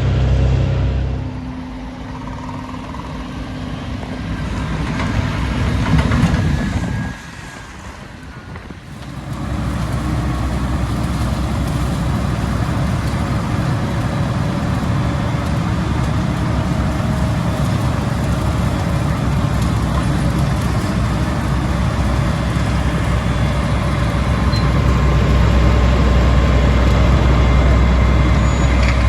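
Heavy diesel engines of roadworks vehicles running, with a loud low drone. The sound drops away briefly a few seconds in, then holds steady and grows louder near the end.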